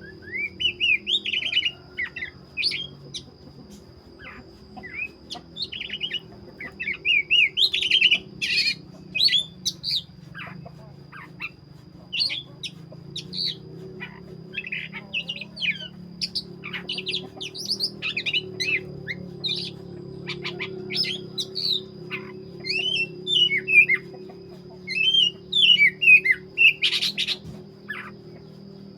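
Oriental magpie-robin (black-breasted kacer) in full song: bursts of rapid, varied whistled notes gliding up and down, repeated every second or two with short pauses.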